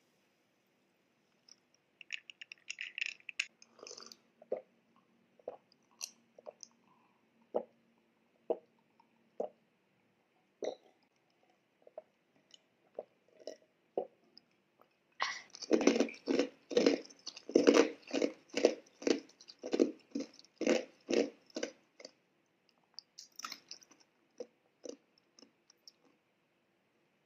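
Close-miked gulping as iced Sprite is drunk from a glass mug: about a dozen loud swallows in a steady run of roughly two a second, after scattered small mouth clicks.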